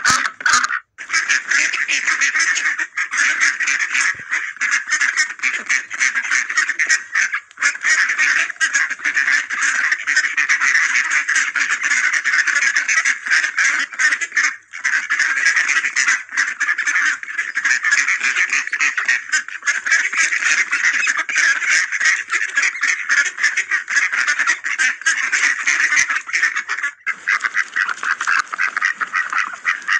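A flock of ducks quacking nonstop, many calls overlapping into a dense chorus.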